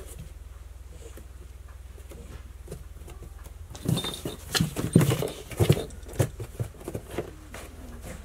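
Cats scrabbling on a cardboard box: a flurry of claw scratches, rustles and dull thumps on the cardboard for about three and a half seconds, starting about four seconds in.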